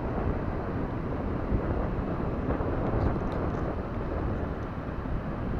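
Strong wind buffeting the microphone, a steady low rumble, with a few faint small clicks about three seconds in.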